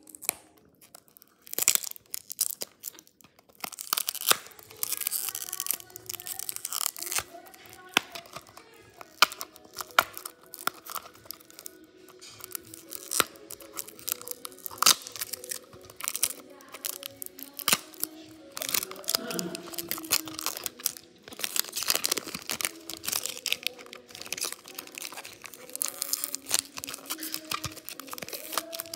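Clear plastic shrink-wrap on a small cardboard toy car box crinkling and tearing as fingers pick at it and peel it off, in many irregular crackles. Music plays in the background.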